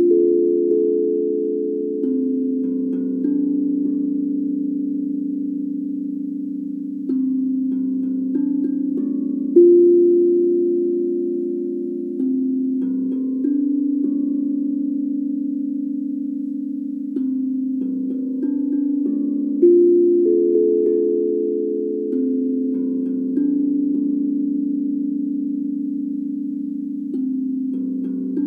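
Steel tongue drum struck with rubber-tipped mallets, playing a slow melody of single low notes that ring on and overlap. A new note comes every second or two, with a stronger stroke about every ten seconds as the phrase repeats.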